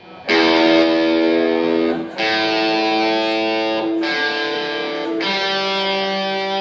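Electric guitar chords played live, four chords struck in turn, each left to ring for one to two seconds, opening a song.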